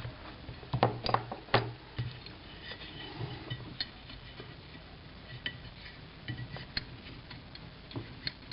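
Small metal rifle parts clicking and clinking as they are handled and worked apart during disassembly. Several sharp clicks come in the first two seconds, then lighter scattered ticks.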